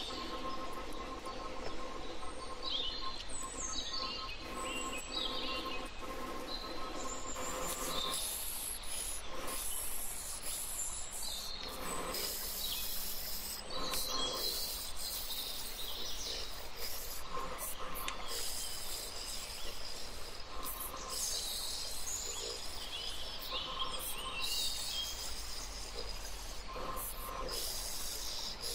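Glass grinder's wet diamond bit grinding the edge of a piece of stained glass: a scratchy, squealing grinding noise that comes and goes as the glass is pressed to the bit.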